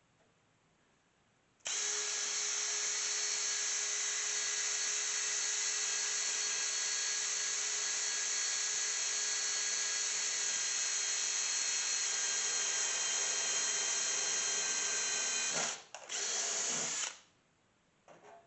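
Electric drill drilling out a rivet in a PC case, running steadily with a constant whine. It starts a couple of seconds in and stops near the end, followed by one short second burst.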